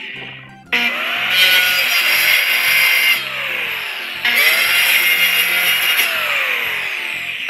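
Milwaukee corded circular saw spinning up and cutting through a plywood sheet in two runs: one of about two and a half seconds, a short stop, then a second run of about three seconds.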